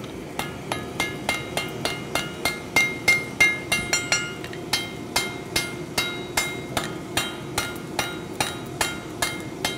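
Hand hammer striking a white-hot niobium billet on an anvil, about three blows a second, each with a short metallic ring: the first blows of a forge-weld attempt. A forge blower hums steadily underneath.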